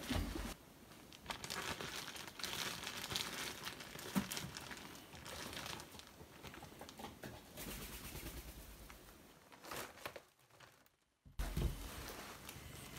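A plastic bag crinkling and rustling as it is handled, with irregular crackles, breaking off briefly about ten seconds in.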